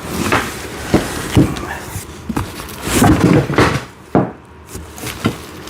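Large cardboard box being flipped over and handled: a run of knocks, bumps and cardboard scraping and rustling.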